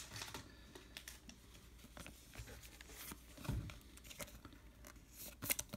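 Baseball cards being flipped through by hand: light clicks and rustles of card stock sliding over one another, with a soft thump about three and a half seconds in.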